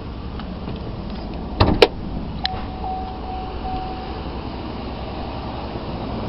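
Hood release of a 2013 Chevy Tahoe pulled: two sharp clunks about a second and a half in as the hood latch lets go. A click follows, then a faint chime-like tone for about two seconds over a steady background hum.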